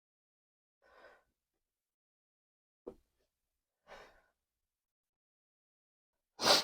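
A man's faint breaths, a short click about three seconds in, and a loud, sharp sigh near the end.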